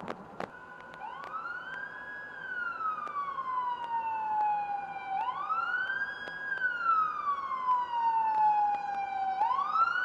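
Ambulance siren wailing as the ambulance approaches. Each cycle rises quickly, holds briefly, then falls slowly over about three seconds. The cycle starts three times, about every four seconds, and grows louder.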